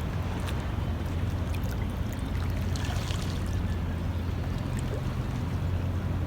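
Sea water lapping and trickling at the water's edge, with small splashes and drips over a steady low rumble, and a brief louder splash about three seconds in.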